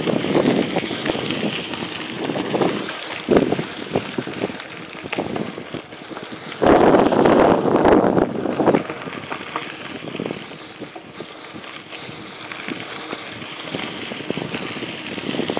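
Wind buffeting the microphone of a camera carried by a cyclist riding along a gravel trail, with an uneven rushing that swells into a louder gust lasting about two seconds around seven seconds in.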